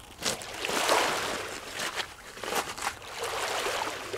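Small waves washing in and out over a pebble beach, swelling twice, with several sharp clacks of pebbles on the stony shore.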